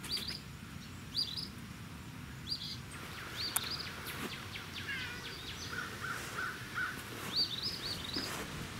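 Songbirds chirping: short high notes in quick clusters, repeating every second or so, with a brief run of four lower, evenly spaced notes partway through.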